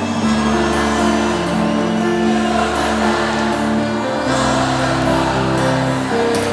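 Instrumental passage of a trance-pop song: sustained synthesizer chords changing every second or so over a steady bass, with no vocals.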